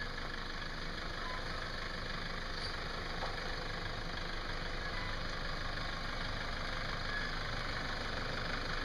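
Off-road 4x4 vehicle's engine running steadily at low speed.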